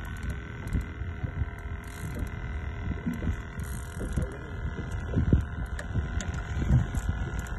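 Low, irregular thumping and rumbling around a small fishing boat on the water, over a steady faint hum. The thumps are heaviest about five and a half and seven seconds in.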